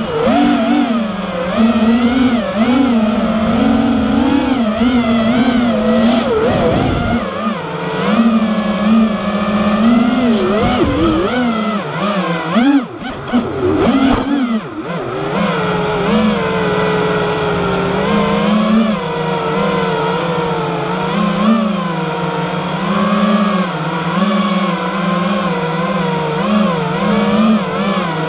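FPV racing quadcopter's four Emax RB2205 2300KV brushless motors spinning 5-inch tri-blade props, a loud buzzing whine whose pitch wavers up and down constantly with throttle. About halfway through, the whine breaks up and swoops in pitch for a couple of seconds before settling again.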